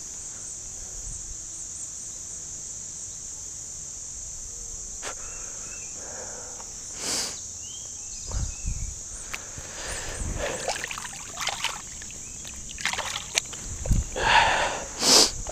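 Creek water splashing and sloshing in irregular bursts, loudest near the end, as a carp thrashes in the shallow water, over a steady high insect chirring.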